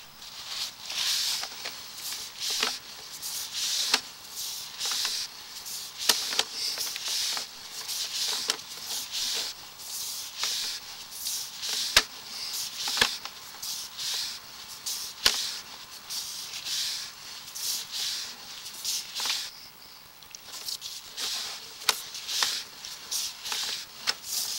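Sewer inspection camera's push cable being pulled back out of the drain line: a scraping hiss that swells and fades about once a second, with sharp clicks scattered through it.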